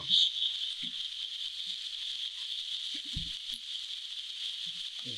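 Minced meat and onions sizzling steadily in a nonstick frying pan, with a few soft knocks of a wooden spoon in the pan as the meat is stirred and broken up, the loudest about three seconds in.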